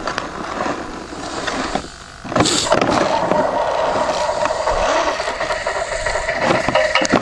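Electric motor and gearbox of a 1:10 scale RC 8x8 truck whining as it crawls through mud. It is noisy at first, dips briefly, then comes in louder and steadier about two and a half seconds in.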